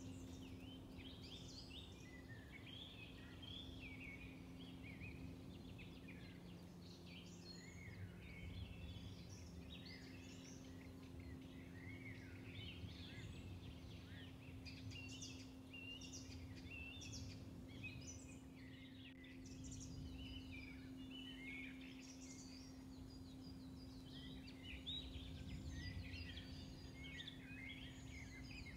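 Faint chorus of many songbirds chirping and singing throughout, over a steady low hum.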